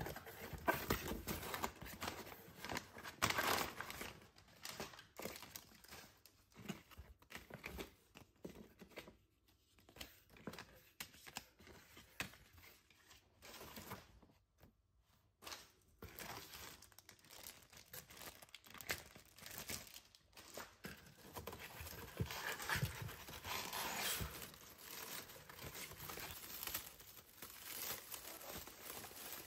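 Cardboard shipping box and honeycomb kraft paper packing being handled at close range, with box flaps opened and the paper crinkling and crumpling in irregular bursts. There are brief lulls about a third of the way in and near the middle.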